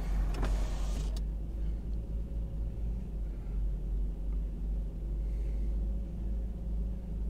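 Low steady engine rumble heard from inside a car on a moving river ferry. A hiss at the start cuts off about a second in.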